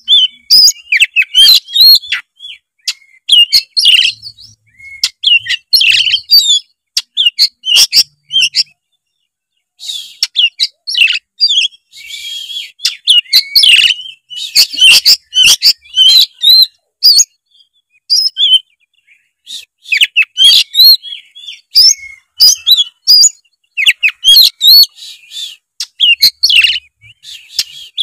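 Oriental magpie-robin singing loudly and without let-up: quick phrases of sweet whistles, chirps and rapid gliding notes, with a few harsh rasping stretches, broken by short pauses.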